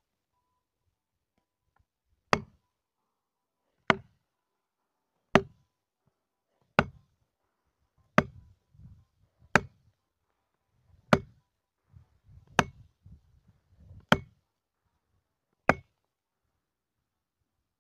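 Axe chopping into wood: ten sharp strikes at an even pace, about one every second and a half, with softer low knocks between some of them.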